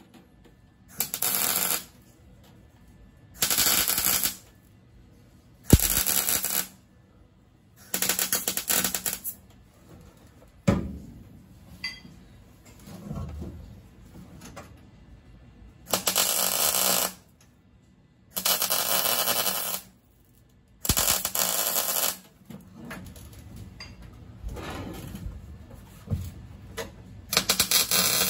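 Wire-feed welder laying short stitch welds along the seam of a new sheet-steel floor pan. About eight crackling bursts of roughly a second each, with pauses between them and a few clicks of handling in the middle.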